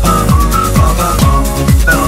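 Electronic dance music with a steady kick drum about twice a second under a high synth melody.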